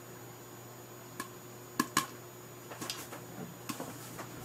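Popcorn kernels popping under a glass lid in a pot nearly full of popped corn. A few sharp pops come at irregular intervals, a second or less apart, as the batch nears its end.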